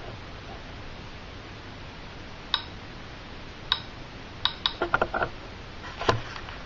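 DRSB-01 radiation survey meter clicking at random, uneven intervals over a faint hiss as it picks up radiation from radium-painted WWII German aircraft instrument dials. Single clicks come a second or so apart, with a quick burst of several clicks about halfway through.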